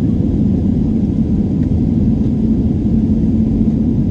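Steady low rumble of a jet airliner's engines and airflow heard inside the passenger cabin during the climb shortly after takeoff, with a steady low hum running under it.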